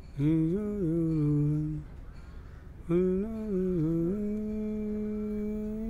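A solo voice humming a slow, wavering melody in two phrases, the second ending on a long held note.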